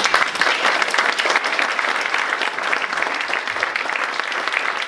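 Audience applauding, a dense clatter of many hands clapping that breaks out suddenly and holds steady.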